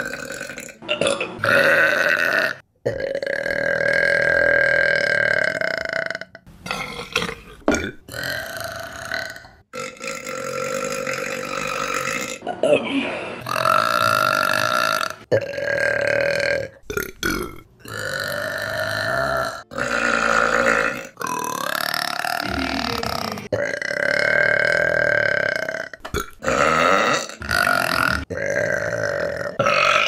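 Women belching one after another, a dozen or more loud burps cut back to back. Several are long and drawn out, lasting two to three seconds each, and each one ends in an abrupt edit to the next.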